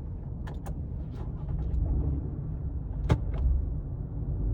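Low rumble of a car rolling in neutral, heard inside the cabin, with a few light clicks and one sharper click about three seconds in, as the push-button start is held down to shut the engine off while moving.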